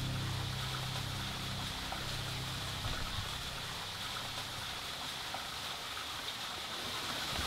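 Steady splashing of a tiered stone garden fountain. Low held music notes fade out within the first couple of seconds.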